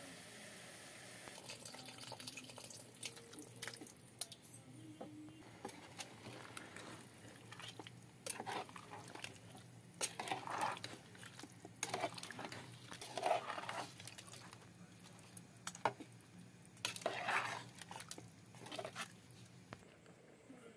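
A metal ladle clinking and scraping in a metal cooking pot as a thick fish curry is stirred: scattered sharp clicks and short scraping strokes, busiest in the second half.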